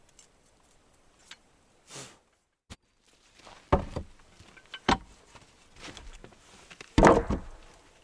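Hand-plane work on a rough wooden board: a few sharp knocks, each followed by a short scrape. Three are loud, the loudest about seven seconds in, after a quiet first two seconds.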